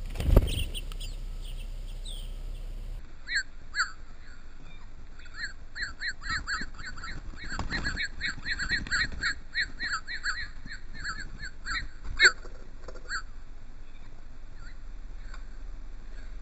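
Small birds calling in a long run of short, rapidly repeated chirps. There is a sharp thump just after the start and a loud click about twelve seconds in.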